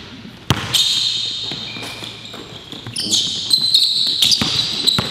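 A basketball bouncing on a hardwood gym floor in sharp thuds, with sneakers squeaking on the court from about three seconds in.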